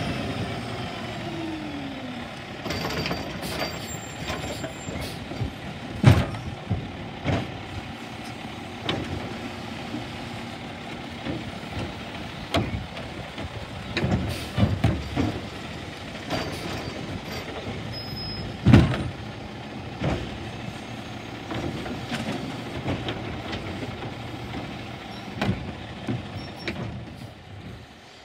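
Peterbilt garbage truck with a Labrie Automizer automated side-loader running at the curb, its diesel engine droning while the arm picks up and empties carts. Sharp bangs ring out about six and seven seconds in, several around fourteen to fifteen seconds, and the loudest near nineteen seconds, as the carts knock against the arm and hopper.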